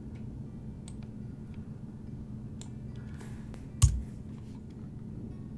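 A few scattered clicks of a computer mouse and keyboard over a low steady hum, with one louder click and thump about four seconds in.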